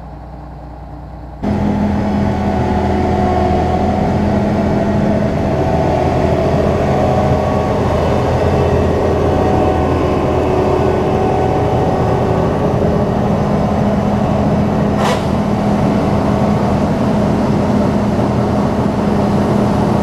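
John Deere 9500 combine running steadily at working speed while its unloading auger empties soybeans into a grain truck: a constant machine drone with a steady hum. It comes in suddenly about a second and a half in, and there is one brief sharp tick about three-quarters of the way through.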